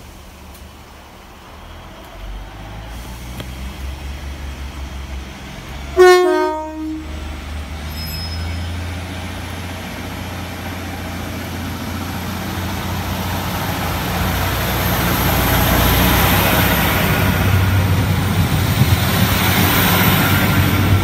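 Class 153 diesel multiple unit approaching, its engine rumble building steadily as it nears. About six seconds in it sounds a short two-tone horn, higher note then lower. A thin high whine grows as the train draws alongside near the end.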